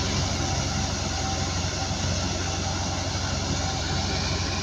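Wheat thresher running steadily under load: a constant low hum under a dense mechanical rattle, with a faint, regularly pulsing whine.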